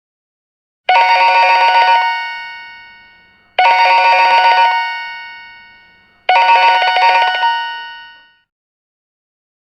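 Cheap plastic telephone ringing three times, about 2.7 seconds apart: each ring is a rapid trill lasting about a second that then dies away.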